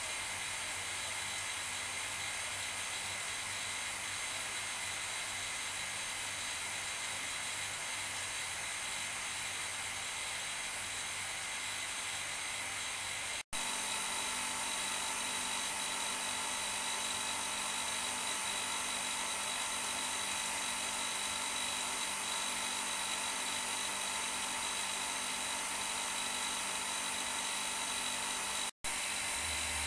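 Vacuum pump running steadily with a constant whine and hiss, holding vacuum on a bagged carbon-fibre layup while epoxy resin infuses through it. The sound cuts out for an instant twice.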